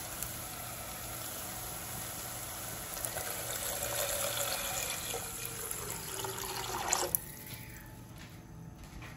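Onions and tomatoes sizzling in coconut oil in a pot, then a stream of water poured into the pot from about three seconds in, louder than the sizzle; the pouring stops abruptly about seven seconds in.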